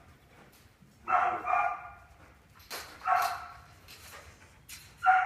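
Herding dog barking in three short bouts, each about half a second long, as it works a group of goats, with a couple of sharp knocks between the bouts.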